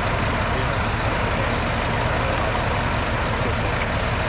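A vehicle engine idling steadily, with a constant low hum and a hiss.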